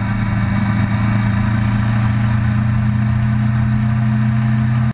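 Vehicle engine running at a steady cruising speed, a constant-pitched drone with road and wind noise over it, which cuts off suddenly at the very end.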